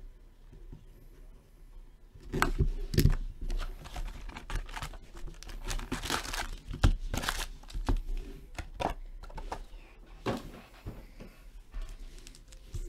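Trading card hobby box and foil card packs being torn open by hand: irregular crinkling and tearing of wrapper and packaging, starting about two seconds in and easing off near the end.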